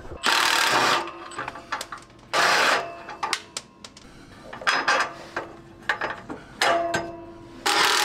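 Milwaukee Fuel brushless cordless impact wrench hammering exhaust flange nuts loose in three short bursts, with sharp metal clicks and briefer whirring runs between them.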